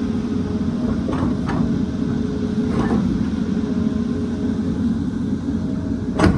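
Excavator's diesel engine running steadily while it digs rock, with a few light knocks and one sharp clank near the end.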